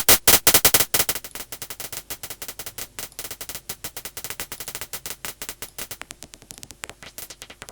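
Synthesized paper-crumpling sound from the Vital software synthesizer, played by a stream of generated MIDI notes. It is a dense, irregular patter of short noise clicks and crackles, loud for about the first second, then quieter and steady.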